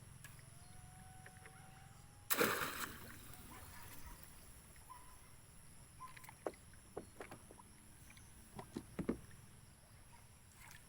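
A loud splash about two seconds in as a stone-weighted panggal fish trap goes into the lake, followed by a few light knocks and water sounds.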